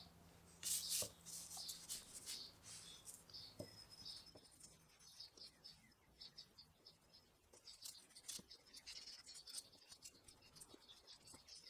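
Faint scraping and rubbing of a hand tool on wood in short, irregular strokes, with a few light clicks and taps.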